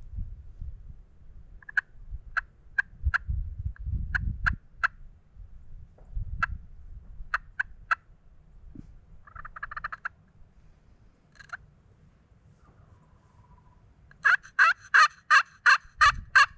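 Turkey calling: runs of three or four short, evenly spaced yelping notes, a rougher rattling burst near the middle, then near the end a loud run of about eight quick notes.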